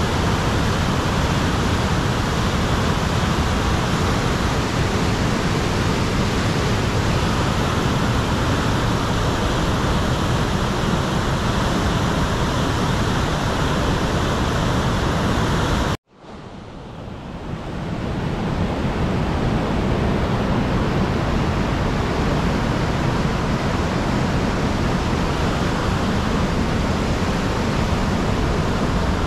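Fast river rushing over whitewater rapids: a steady, loud rush of water. It cuts out suddenly about sixteen seconds in and fades back in over a couple of seconds.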